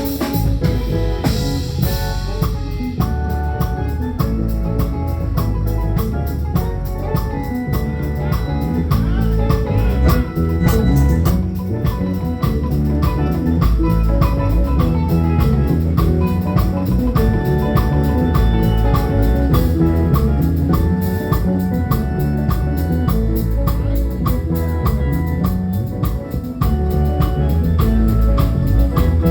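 A live band playing music with a steady drum beat and a heavy bass line.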